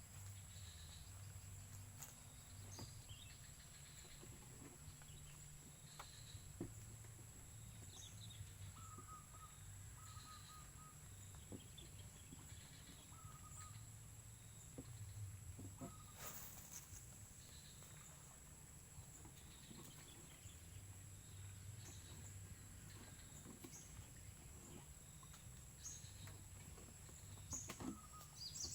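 Faint open-air ambience: a bird giving short calls every second or two over a steady high insect whine, with a low rumble and a few light clicks.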